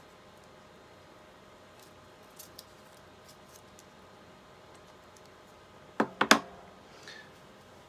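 Three quick sharp clicks close together about six seconds in, with a few faint ticks earlier: a fresh piece of tape being handled and cut.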